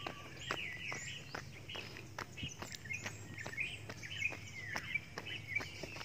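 Birds chirping and calling, over the footsteps of people jogging on a concrete road, about two or three steps a second.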